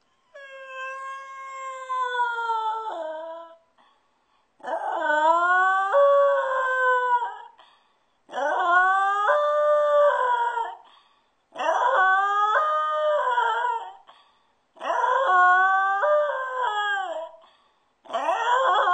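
A dog howling: six long drawn-out howls with short pauses between them, each rising at the start and sliding down at the end.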